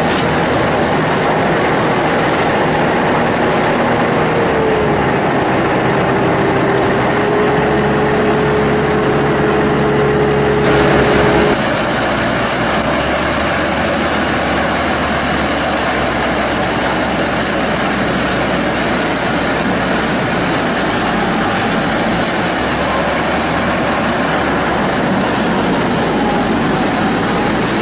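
Heavy engine of a corn harvester running steadily. Its tone dips briefly about five seconds in, and about eleven seconds in the sound changes abruptly to a more even, noisier machine drone without the clear tone.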